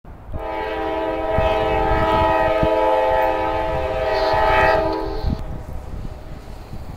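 Approaching train's air horn sounding one long blast of several notes at once, stopping about five seconds in. A low rumble follows.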